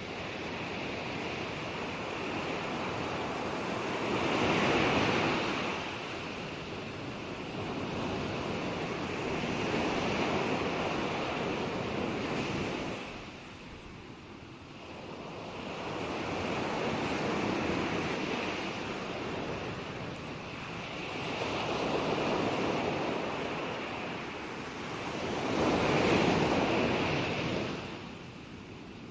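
Ocean waves breaking on a shore: a steady wash of surf that swells and ebbs, with about five waves cresting several seconds apart.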